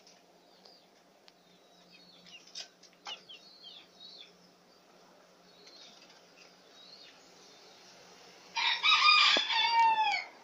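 A rooster crowing once, loud, near the end, its last drawn-out note falling in pitch, after a few faint bird chirps earlier on.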